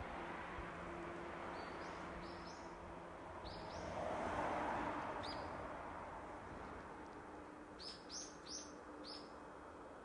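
A small bird chirping: short rising calls a few times, then four in quick succession near the end. Under it runs a steady outdoor rushing noise that swells for a couple of seconds about four seconds in.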